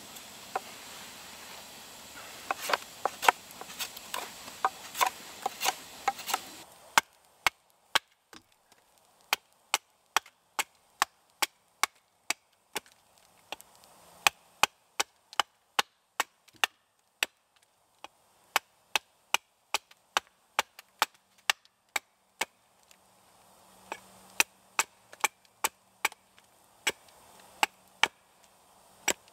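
Knife strokes carving the end of a green wooden spit, then a steady run of small-axe chops, about two a second, tapering the point of an upright wooden stake on a log chopping block.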